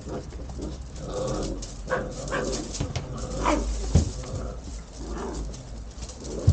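Dutch Shepherd puppies yipping, barking and whimpering as they play-fight over a cardboard box, with a sharp yelp falling in pitch about three and a half seconds in. A couple of dull knocks come later.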